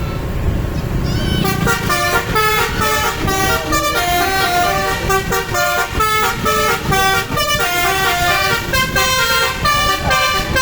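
Basuri telolet bus horn playing a rapid jingle of short multi-tone notes stepping up and down in pitch, starting about a second and a half in over a low rumble.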